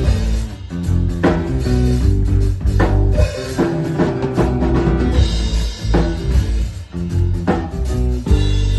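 Live band playing a dub groove: drum kit with kick, snare and rimshots over a deep bass line. Near the end the drums stop and the band holds one sustained chord.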